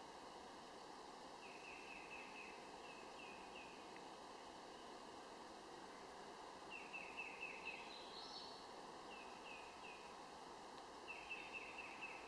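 Faint bird calls: four short bouts of quick, falling chirps, each bout a rapid run of five or six notes, over a steady outdoor background hiss.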